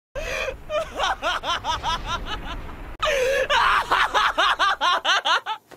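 A young man's voice laughing hysterically in rapid, rising "ha" syllables: two long runs of laughter, the second starting about three seconds in. The song has dropped out, leaving only the voice.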